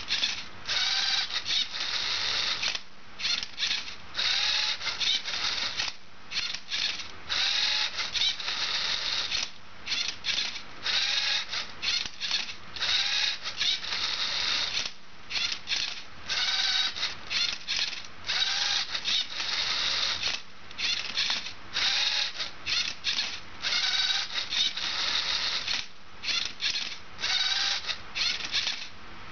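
LEGO Mindstorms robot's servo motors and gearing whirring in repeated short bursts with brief pauses, as the turntable spins the Rubik's cube and the arm tilts it while solving. The motor whine rises and falls with each move.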